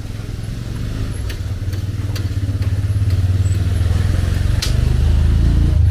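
Engine of a motor vehicle, such as a motorcycle, running at low revs with a loud, steady low rumble that grows louder toward the end. A few sharp clicks sound over it.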